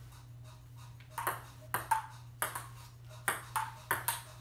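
Table tennis rally: a celluloid ping pong ball clicking sharply as it is struck back and forth off the paddles and bounces on the table, about two to three hits a second, starting about a second in.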